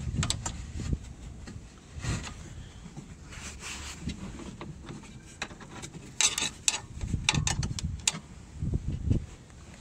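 Scattered clicks, knocks and rubbing of a car door's exterior release cable being unhooked and worked out through the door of a 2008 Range Rover L322. A quick run of sharp clicks comes about six seconds in, followed by dull knocks.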